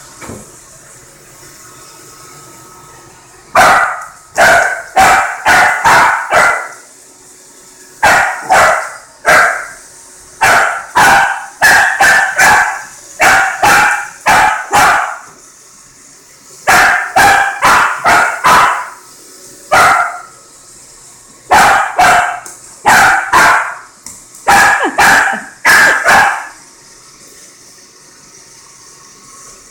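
A dog barking at a robot vacuum in repeated loud bouts of three to five sharp barks, starting a few seconds in and stopping a few seconds before the end. A faint steady hum from the running vacuum lies underneath.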